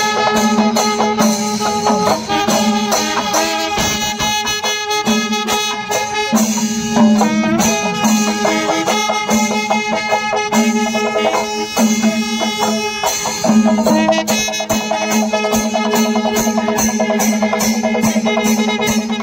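Loud traditional music from a live ensemble: wind instruments playing a melody over a steady drone, with drums and cymbals keeping a regular beat.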